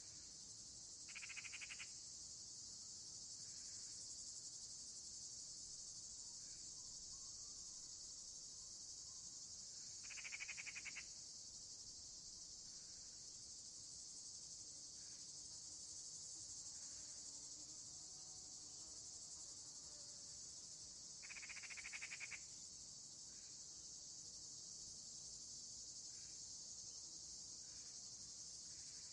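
Faint, steady, high-pitched chorus of evening insects. Three times, about a second in, about ten seconds in and about 21 seconds in, a louder, rapidly pulsed buzz rises above it for about a second.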